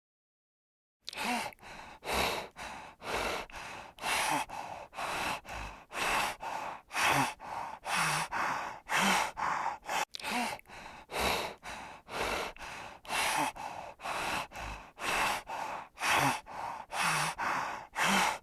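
An animal panting rapidly and steadily, about two quick breathy huffs a second, starting about a second in.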